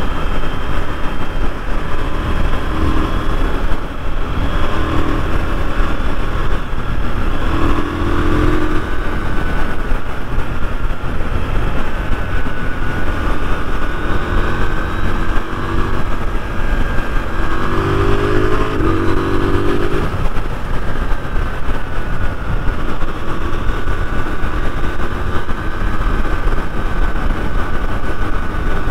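KTM 990 Duke's parallel-twin engine running under way, its pitch climbing in several short rises as it accelerates, over a loud steady rush of wind and road noise.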